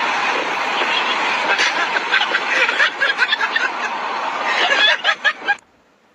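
Wind and road noise rushing in through an open car window on a moving car, cutting off suddenly about five and a half seconds in.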